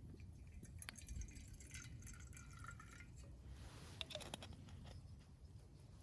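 Faint small clicks and light handling noises over a low, steady background rumble, with a few sharp ticks about a second in and again around four seconds in.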